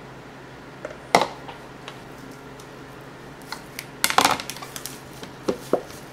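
Kitchen handling sounds: a ceramic bowl clinks down about a second in, then a knife works at a plastic-wrapped block of tofu in the bowl with a cluster of clicks and scrapes, and two knocks near the end as the knife is laid on the cutting board.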